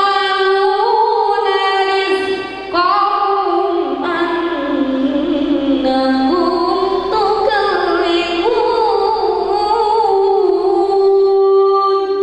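A boy singing solo into a microphone: long held notes that bend and waver in ornamented runs, with a short break about two and a half seconds in.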